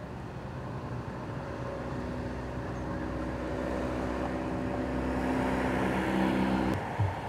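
A car driving past, its engine hum growing steadily louder, then cutting off abruptly near the end, followed by a short low thump.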